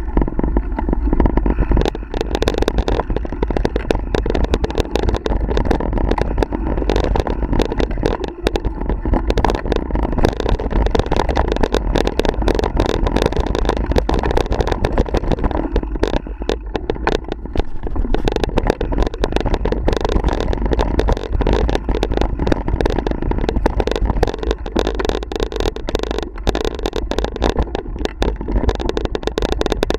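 Mountain bike riding over dirt singletrack: a steady rumble of tyres on the trail with constant clattering and rattling from the bike over the bumps.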